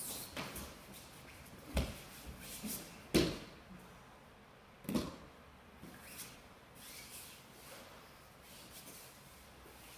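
Bodies and bare feet thumping onto a padded training mat during an aikido throw and pin, three thumps with the loudest about three seconds in, amid rustling and swishing of gi and hakama fabric.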